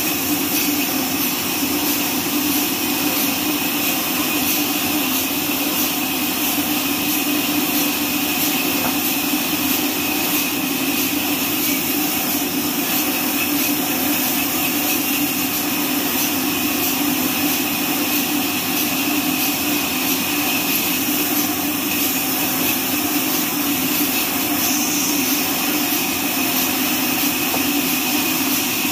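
Horizontal band sawmill running steadily, its band blade sawing lengthwise through a neem log with a constant hiss and whine.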